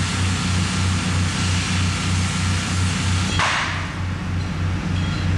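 Oxy-fuel cutting torch hissing as it cuts steel, over a low machine drone that pulses about three times a second. There are two brief louder hissing surges, about three and a half seconds in and at the end.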